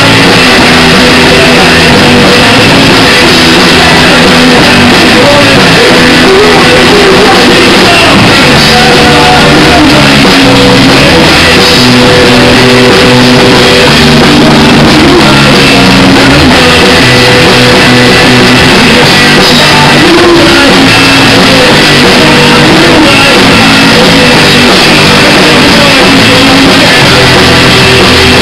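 Live rock band playing electric guitars and a drum kit, very loud with no let-up.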